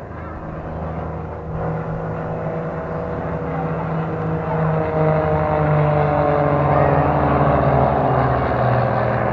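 Aircraft engine passing overhead, growing louder and slowly falling in pitch.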